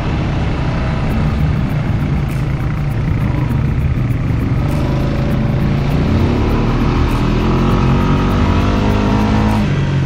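ATV engine running under load, its pitch rising steadily from about halfway through as it accelerates, then dropping off shortly before the end.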